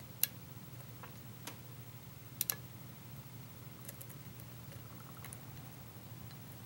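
Lock pick and tension wrench working the pins of a pin-tumbler lock: scattered small, sharp metal clicks and ticks, a few louder ones in the first half including a quick double click, lighter ticks later. A faint low steady hum lies underneath.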